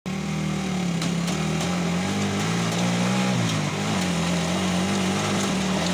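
Belarus tractor diesel engine running steadily, its pitch wavering slightly, with a few faint ticks over it.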